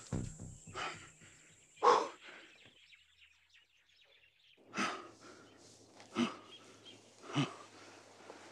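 A man gasping and panting for breath, the gasps partly voiced: two about a second apart near the start, a short hush, then three more over the last few seconds.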